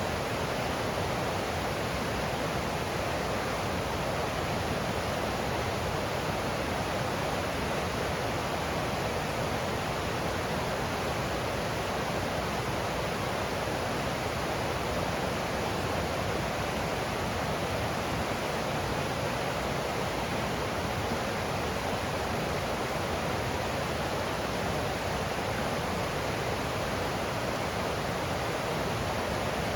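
Water of a forest stream rushing and splashing over rocks, a steady, even wash of sound.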